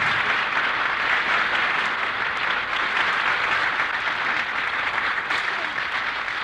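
Studio audience applauding as a sung ballad ends.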